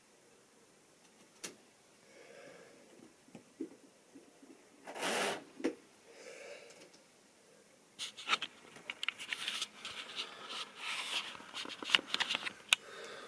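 Quiet room with a few scattered clicks and a short rustle, then from about two-thirds in a busy run of irregular clicks, knocks and rustling handling noises.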